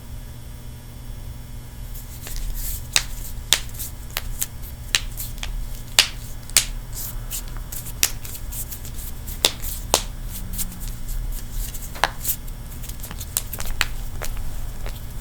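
Joints being cracked: an irregular run of sharp pops and clicks that starts about two seconds in, several of them loud, over a steady low hum.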